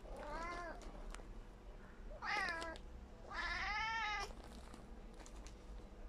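Tabby cat meowing three times while gazing up at a fly it wants to catch. Each call rises then falls in pitch: a short one at the start, a louder one about two seconds in, and a longer, loud one of about a second just after three seconds.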